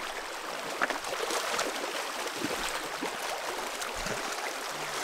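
Shallow river water rushing and rippling over stones and around a wading angler's legs, with a few small splashes.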